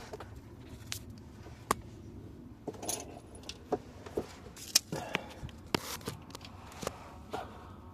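Hand tools and small metal parts clinking and tapping at irregular intervals, a dozen or so sharp metallic clicks, as work begins on reaching a car's crankshaft position sensor.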